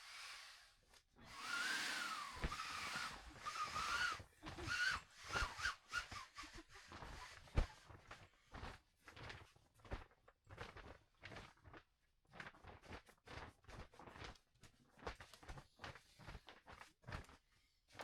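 A hissy rustling stretch with a few short squeaky wavering tones, then a long run of irregular light knocks and rustles, like footsteps and handling of camp gear.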